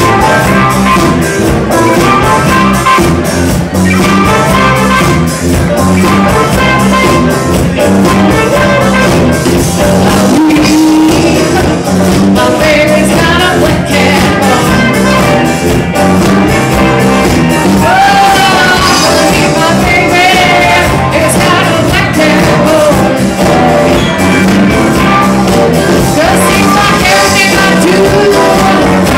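Live band playing loudly: electric guitar, drum kit and trumpet over a steady beat, with a singer's voice.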